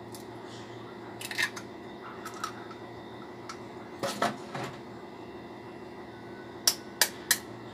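A metal spoon tapping and cracking egg shells over a ceramic plate: a few sharp clicks about a second in and again around four seconds, then three quick taps near the end, over a faint steady hum.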